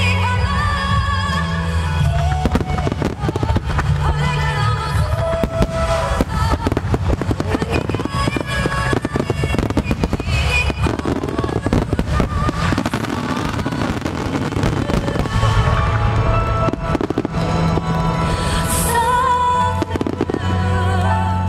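A fireworks finale barrage: rapid, overlapping aerial shell bursts and crackling stars, over music with a steady bass line.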